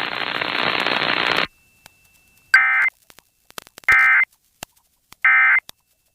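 Emergency Alert System end-of-message: three short, identical bursts of SAME digital data tones, about a second and a half apart, closing the tornado watch alert. Before them, a steady hiss from the relayed alert audio cuts off abruptly about a second and a half in.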